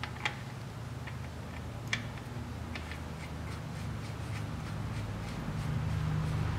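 Transfer case drain plug being screwed back in by hand, with a few light metallic clicks and ticks, the sharpest about two seconds in, over a steady low hum.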